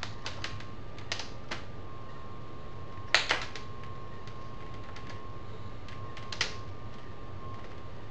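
Plastic laptop screen bezel being snapped into place: a few scattered sharp clicks, the loudest a double click about three seconds in and another clear click near six and a half seconds.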